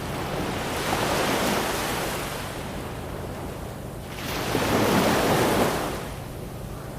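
Ocean waves breaking and washing on a shore: two swells of surf, the louder one peaking around five seconds in, over a steady low rumble of the sea.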